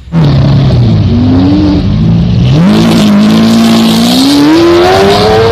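Race car engine sound revving: the pitch dips, jumps up about two and a half seconds in, then climbs steadily toward the end before cutting off suddenly.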